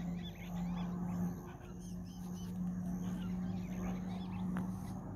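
Small birds chirping over a steady low drone, which drops out briefly about a second and a half in.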